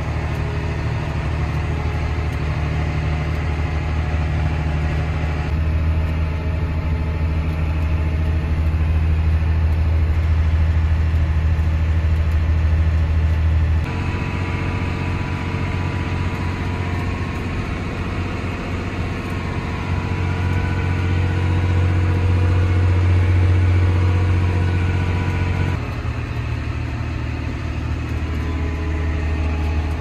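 Farm tractor engine running steadily with a deep drone, which changes abruptly in pitch and loudness three times.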